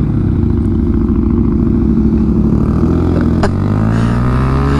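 Motorcycle engine running, then accelerating from about three seconds in, its pitch rising steadily. A sharp click about three and a half seconds in.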